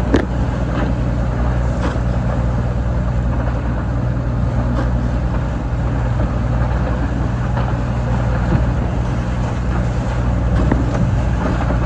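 A Leopard 40 catamaran's inboard diesel engine running steadily under way, with wind and rushing water over it.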